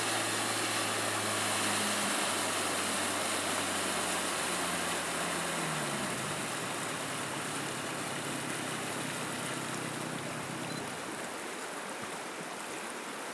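Small boat's outboard motor running steadily, then dropping in pitch about halfway through as it throttles back, and fading out near the end. A steady hiss of water runs under it.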